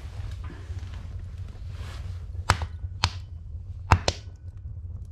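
Wood fire crackling in a wood stove: four sharp pops from the burning logs between about two and a half and four seconds in, over a steady low rumble.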